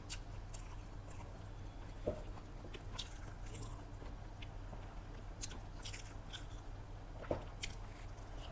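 Close-up mouth sounds of someone chewing a mouthful of chicken biryani: wet smacks and small clicks, with two sharper knocks about two seconds in and near the end, over a steady low electrical hum.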